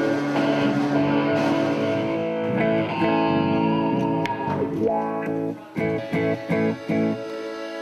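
Rock music led by an electric guitar with distortion and effects. About five and a half seconds in it breaks into a run of short, clipped chord stabs, then settles on a quieter held chord.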